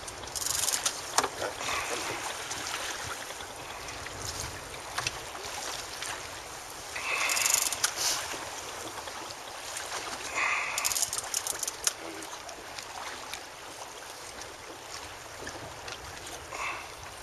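Small outboard-powered open boat underway: a steady rush of wind and water noise with no clear engine note, rising in a few louder gusts of hiss.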